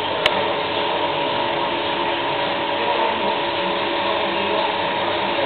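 Milking-parlour machinery running steadily, a constant mechanical hum and hiss with several steady tones through it. A single sharp click sounds just after the start.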